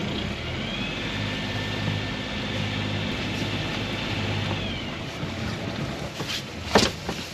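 Electric anchor windlass running, paying out anchor chain: a steady motor whine that rises as it starts and drops away as it stops about five seconds in. A sharp knock follows near the end.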